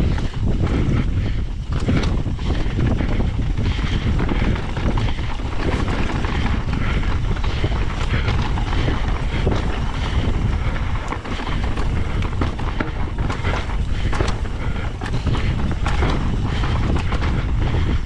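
Ibis Ripmo full-suspension mountain bike descending a rocky trail at speed: a steady rush of wind on the camera microphone, with tyres crunching over rock and gravel and the bike rattling over the bumps.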